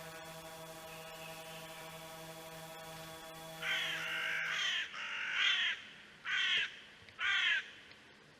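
A crow cawing four times, harsh calls about a second apart, the first the longest. Under the first calls a steady hum runs on and stops about halfway through.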